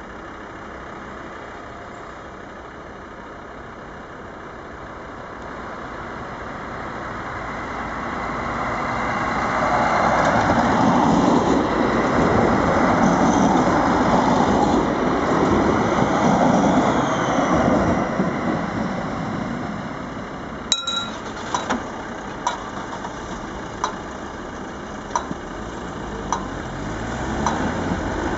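Two Stadler Regio-Shuttle RS1 diesel railcars coupled together passing close by: engine and wheel-on-rail noise builds up, stays loud for several seconds as the train goes past, then fades. After that come a string of short, sharp clicks.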